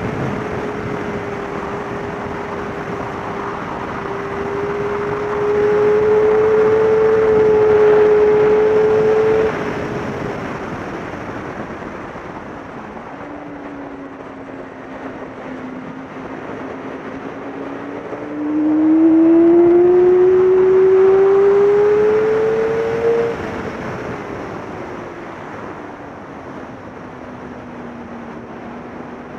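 Yamaha R6 sport bike's inline-four engine at speed on track, with wind rush. The engine holds a steady loud note, drops off about ten seconds in as the throttle closes, then climbs again under acceleration from about eighteen seconds before falling away near twenty-three seconds.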